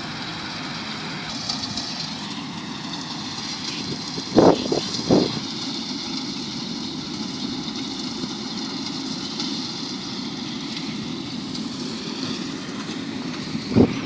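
Track combine harvester's Kirloskar turbo diesel engine running steadily while it harvests paddy some way off. A few brief loud noises break in about four to five seconds in and again near the end.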